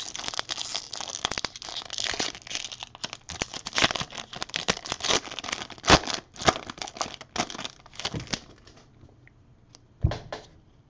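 Plastic trading-card pack wrapper crinkling and tearing as it is opened, a dense crackle that dies down about eight and a half seconds in. A single dull thump near the end.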